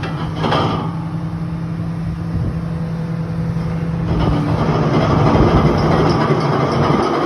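Hydraulic excavator's diesel engine running steadily, with a single knock about half a second in. About four seconds in the engine works harder and gets louder.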